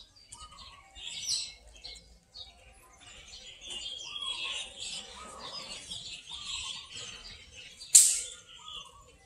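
Small birds chirping and twittering in the background, with one sharp, loud click near the end.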